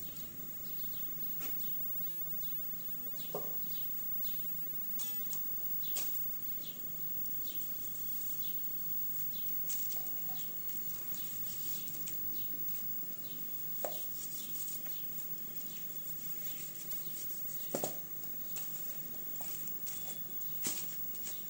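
Kitchen knife cutting raw chicken held in the hand, with many small clicks of the blade through flesh and skin and a few sharper knocks spread through.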